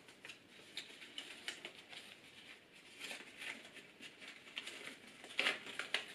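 Woven paper heart basket handled in the hands: light rustling and crinkling of paper with small scattered ticks, a little louder about five seconds in.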